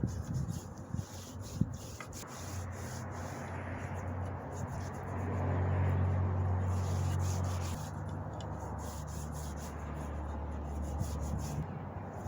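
Rubbing on wood by hand: a walking stick or bat being sanded or rubbed down with finish. A low steady hum runs underneath, swells in the middle and stops abruptly near the end.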